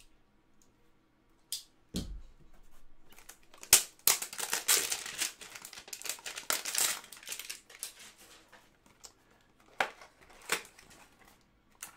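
A baseball-card hanger box being torn open: a few taps and clicks, then about three seconds of tearing and crinkling packaging starting about four seconds in, and a few light taps near the end as the stack of cards is handled.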